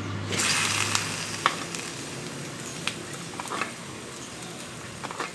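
Hot pan juices poured over roasting lamb shanks, sizzling. The sizzle swells shortly after the start and is loudest for about the first second, then goes on more softly with a few light clicks.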